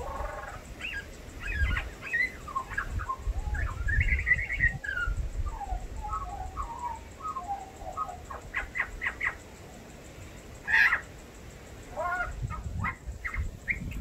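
Australian magpie singing a varied run of warbles, whistles and short chirps, mixing in calls copied from other birds. Partway through comes a quick series of short clipped notes, then one brief louder, harsher note.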